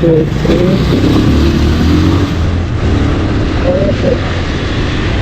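A 150 cc motorcycle engine running under way, with a steady low rumble and wind noise on the microphone.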